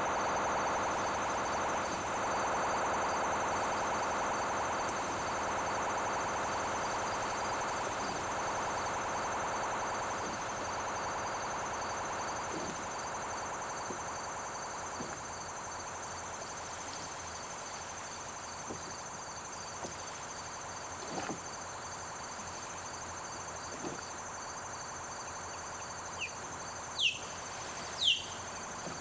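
Battery-powered synthesizer holding a sustained electronic drone of many stacked tones, slowly fading away. A steady high tone and a faint pulsing high tone run underneath, and near the end a few short, sharp bird chirps fall quickly in pitch.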